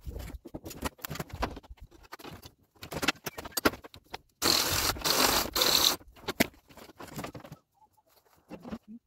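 Work noise from installing fiber-cement shake siding: a run of knocks and clicks from handling tools and shingles. About halfway through comes a loud, harsh burst lasting about a second and a half.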